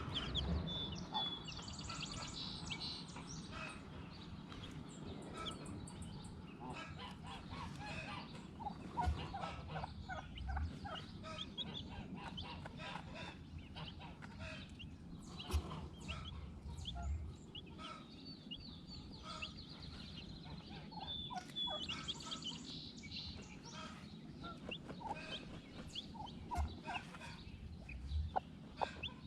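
A flock of chickens calling: many short clucks and chirps overlapping, with a few dull low thumps now and then.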